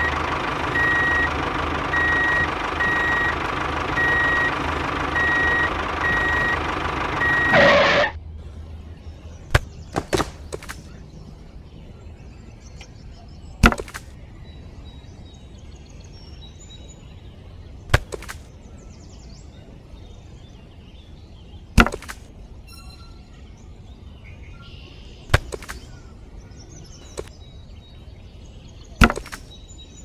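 A miniature tractor's small electric motor spins a toy circular saw blade steadily, with a high beep repeating at an even pace, and cuts off suddenly about eight seconds in. After that come single sharp knocks every few seconds as small cut sticks are set down and loaded by hand.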